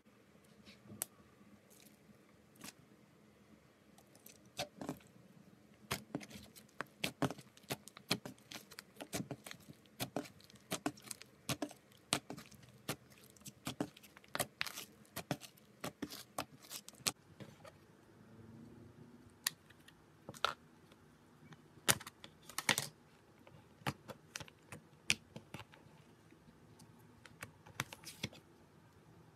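Slime being squeezed, stretched and folded by hand: a busy run of small sharp clicks and pops, thickest in the first half and sparser later.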